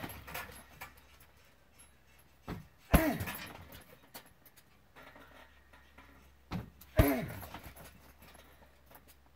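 Two kicks landing on a hanging heavy punching bag, about four seconds apart. Each is a sharp smack with a lighter knock just before it and a short falling-pitched sound after it.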